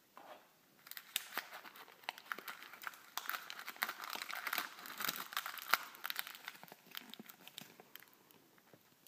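Crinkling of a clear plastic candy packet and a folded paper leaflet as they are handled, pulled out of a plastic surprise egg and unfolded. The dense crackling starts about a second in, is heaviest in the middle and dies away near the end.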